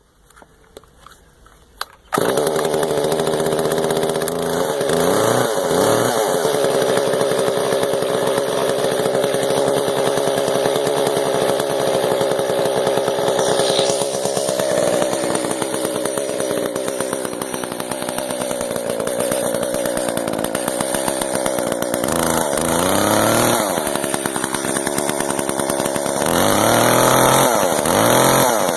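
Echo CS-306 top-handle two-stroke chainsaw, cold-started and just taken off choke, catching about two seconds in and then running steadily. It is revved up and back down a few times, most clearly twice near the end.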